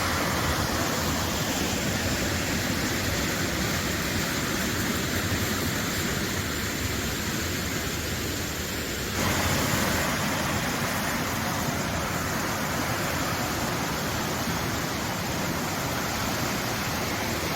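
Steady rush of flowing water, its texture shifting abruptly about nine seconds in.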